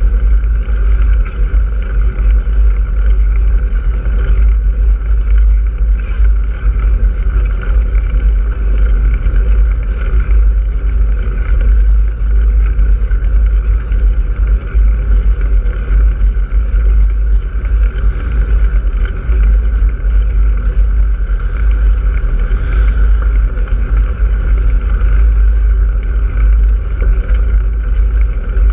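Steady wind rumble on the microphone of a camera moving along a road, with road noise underneath.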